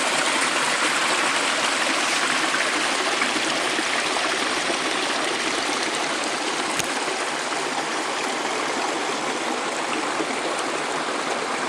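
Small mountain stream flowing over rocks, a steady rush of water.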